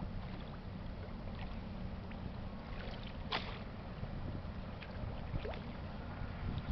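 Steady low rumble with a faint click about three seconds in.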